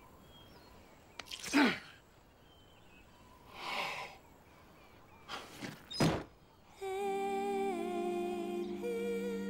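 A man's startled gasps and breaths, three short bursts in the first six seconds. Then soft music with long held notes comes in about seven seconds in.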